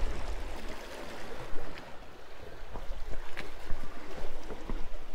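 Sea washing against the rocks, with wind buffeting the microphone as a low rumble and a few small sharp clicks and taps.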